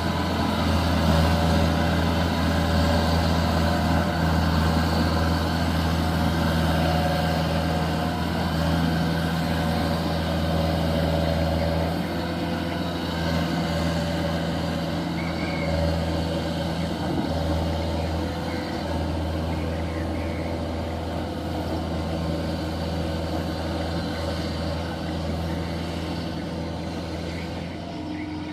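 Kubota DC93 combine harvester's diesel engine running steadily with a low, even drone, a little quieter from about twelve seconds in.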